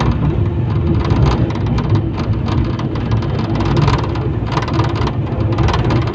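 71-911EM "Lvyonok" low-floor tram running along the track, heard from inside the car: a loud, steady low rumble of wheels on rail with frequent knocks and rattles, and a faint steady hum underneath.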